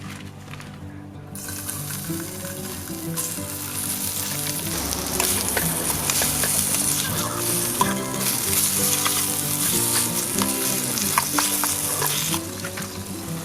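Sliced bacon frying in olive oil in a metal sierra cup, with clicks and scrapes from stirring. The sizzle starts softly about a second in, grows louder around three seconds in, and eases near the end.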